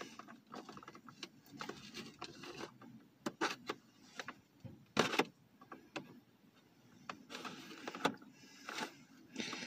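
A cardboard-and-plastic action-figure window box being pulled open by hand: scattered crinkling and rustling, with sharp clicks of plastic and cardboard, louder about halfway through and again near the end.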